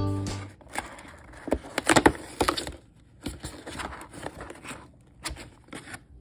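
Cardboard door of an advent calendar box being pried and torn open by hand: a cluster of sharp crinkling, tearing clicks about two seconds in, then lighter scattered scrapes and ticks as the box is handled. Music fades out at the very start.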